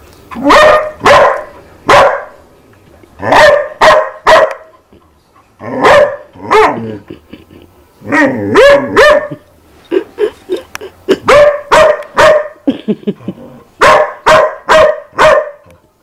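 Dog barking repeatedly, in quick runs of two to four sharp barks with short pauses between, and some smaller yips about ten seconds in.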